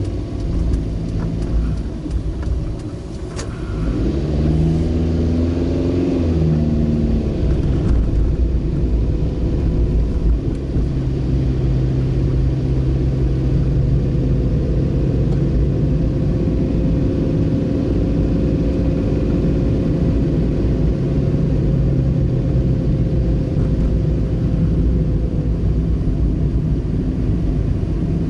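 Car engine and road noise heard from inside the cabin. The engine speeds up a few seconds in, then the car cruises with a steady engine hum and tyre noise.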